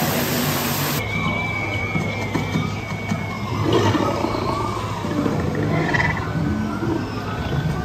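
Rushing waterfall water for about the first second, then a dark-ride soundtrack of ambient music with gliding creature calls and jungle animal sounds over it.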